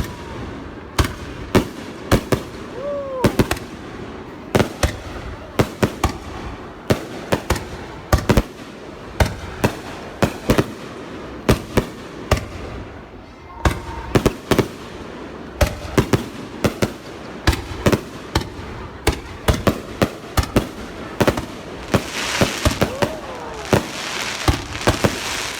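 Fireworks going off in rapid, irregular succession, a few sharp bangs every second. Near the end there is a stretch of dense crackling.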